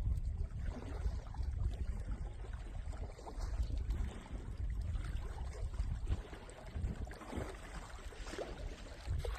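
Wind buffeting the microphone: an uneven low rumble, over a faint, steady outdoor hiss.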